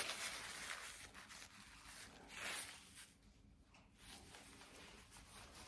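Faint scratchy rubbing and rustling, in a few soft swells, as small objects are handled or rubbed.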